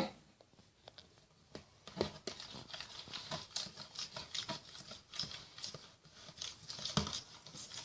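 Irregular small clicks, taps and light scrapes, starting about two seconds in, from handling a bowl of homemade shampoo slime.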